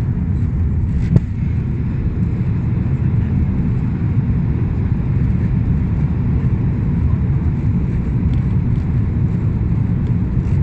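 Airliner cabin noise during the descent: a steady low rumble of engines and airflow, with a single sharp click about a second in.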